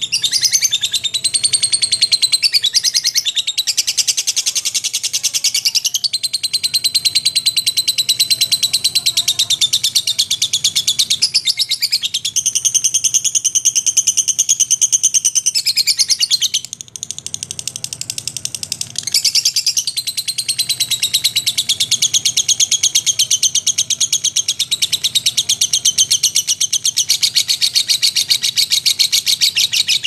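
Lovebird 'ngekek': a long, continuous, rapid high-pitched chattering trill, briefly weaker a little past the middle before picking up again.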